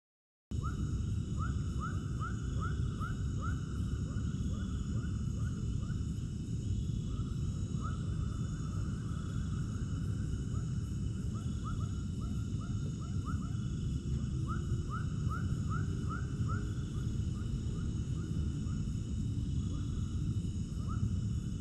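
Dusk outdoor ambience starting about half a second in: a steady low rumble under a steady high insect drone, with bouts of quick, repeated downward-slurred animal calls that come and go.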